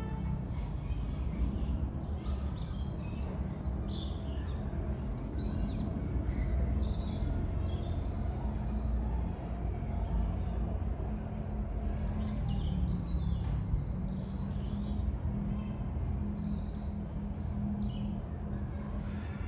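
Several birds singing and calling in short chirps and whistles, busiest in the second half, over a steady low rumble of distant road traffic.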